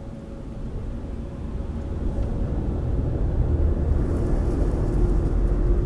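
Low rumbling noise that grows steadily louder, with a faint steady hum joining about three seconds in.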